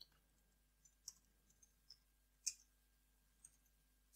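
Near silence broken by a few faint, scattered computer keyboard clicks from typing. The clearest click comes about two and a half seconds in.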